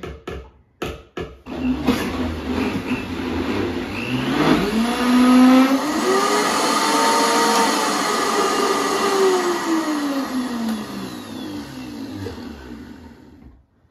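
Countertop blender running, whipping heavy cream with cream cheese and sugar to a thick, creamy consistency. Its motor pitch rises over the first few seconds, then sinks slowly and fades before it stops near the end.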